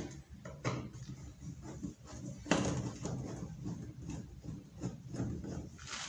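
A Phillips screwdriver unscrewing the screws of a washing machine's sheet-metal back cover, with irregular small metal clicks and scrapes and one louder knock about two and a half seconds in.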